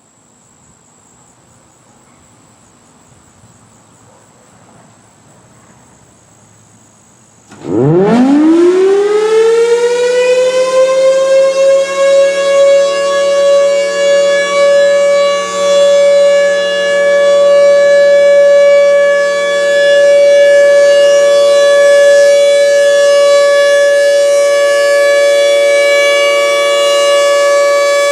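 Federal Signal Thunderbolt 1000B outdoor warning siren starting up for its monthly test. After several seconds of faint background with a thin, steady high tone, it winds up quickly from a low growl to a loud steady wail about a third of the way in, its loudness wavering as it runs.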